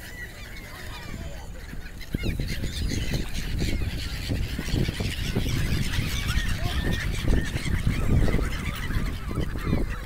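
A flock of black-headed gulls calling over one another in many short, harsh cries, with a low rush of wings and air that grows louder about two seconds in.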